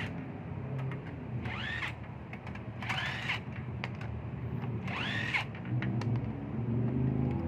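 Power tool, such as a cordless drill or impact driver, spinning up and winding down in short rising-and-falling whines, three times, as the wheel bolts are run out. A low steady hum runs underneath.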